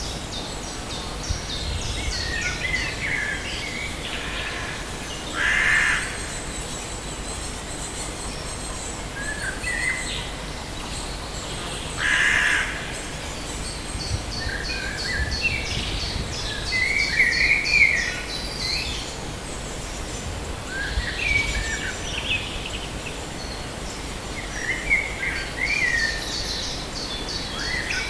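Forest birds singing over a steady background hiss: a fast, high trill repeats again and again, with short chirps from other birds between. Twice, about six and twelve seconds in, a short harsh call rings out louder than the rest.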